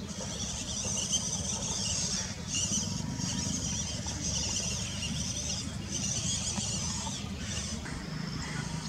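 Small electric motor and gear drive of a WPL 1/16 Toyota Hilux RC truck whining in stretches with short breaks as it is throttled over rough ground, over a steady low rumble.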